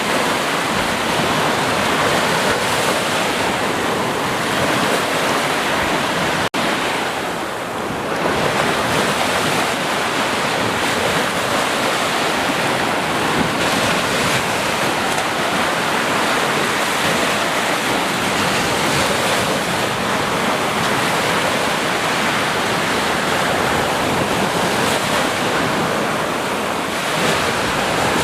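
Sea waves breaking and washing on the shore in a steady, continuous rush of surf, with a momentary dropout about six and a half seconds in.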